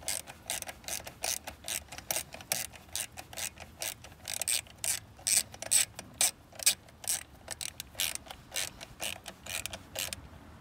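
Hand socket ratchet clicking as it turns a bolt, a rapid run of sharp clicks at about four a second that stops near the end.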